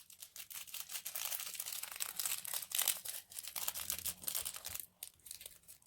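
Continuous crinkling and crackling of plastic being handled while a DIY slime mix is made, easing off briefly about five seconds in.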